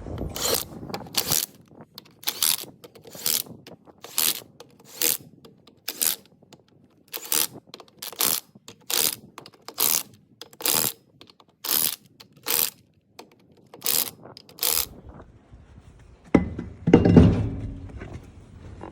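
Short mechanical rasping strokes repeated at an even pace, about one every 0.8 seconds and some eighteen in all, then a louder, lower rumbling noise near the end.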